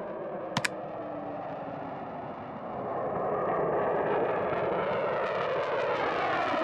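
Sukhoi Su-24MR's twin AL-21F-3 turbojets heard as the jet flies past: a steady jet noise with a sweeping, phasing sound that swells about two and a half seconds in. Two short clicks sound about half a second in.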